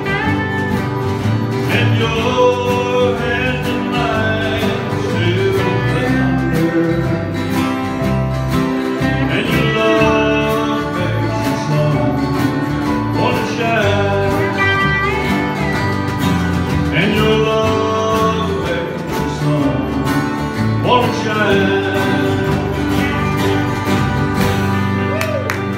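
Acoustic guitar and F-style mandolin playing a country tune together, the mandolin adding runs of quick high notes every few seconds.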